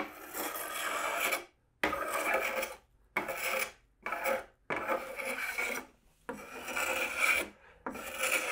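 Linbide carbide paint scraper shaving built-up paint runs off the edge of a painted door: about seven scraping strokes with short pauses between them, the blade freshly flipped to its sharp side.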